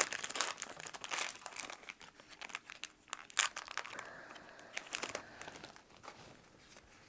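Yu-Gi-Oh Retro Pack booster wrapper crinkling as it is handled, dense crackling in the first second or so, then thinning to scattered crackles.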